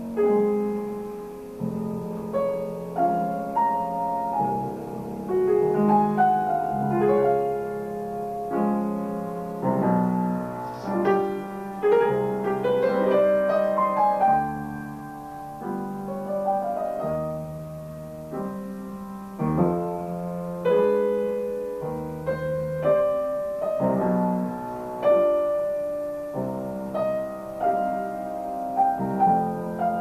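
Grand piano played solo: a continuous flow of quick notes and chords over a bass line, with frequent loud accents.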